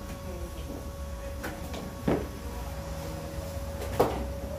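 Two sharp knocks about two seconds apart, with a few fainter clicks, over a steady hum.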